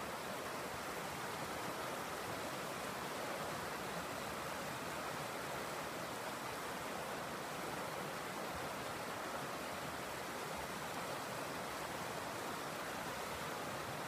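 River rapids: water rushing steadily over rocks in a shallow riffle.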